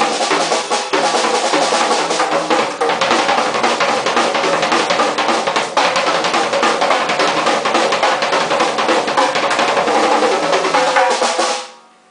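Drum kit played fast and dense, snare and bass drum strokes packed into continuous rolls and fills, cutting off abruptly near the end.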